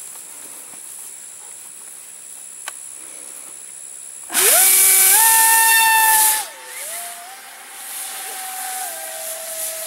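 Electric motor and propeller of the Sharknado foamboard RC speed plane on a 6-cell battery, spinning up suddenly about four seconds in to a loud whine that rises in pitch. After about two seconds it drops to a lower, quieter whine that steps down in pitch.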